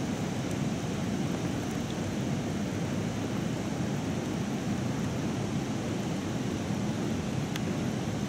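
Steady hiss of light rain falling on a pond's surface, with a faint tick or two from single drops.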